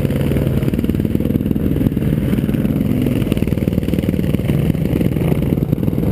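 Single-cylinder four-stroke sport ATV engine running steadily under throttle, its firing pulses close and even.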